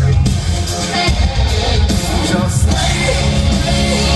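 A rock band playing loudly on stage, with singing over the instruments, heard from within the crowd.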